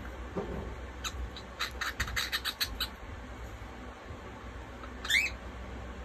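Cockatiel making a quick run of about ten sharp clicks, then one loud rising chirp about five seconds in.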